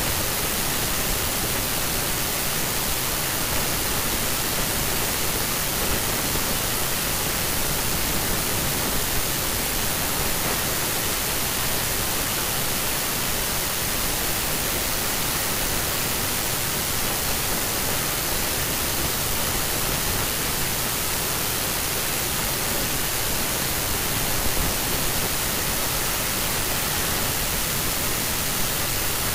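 Steady, unchanging hiss of static noise, even across high and low pitches, with no other sound.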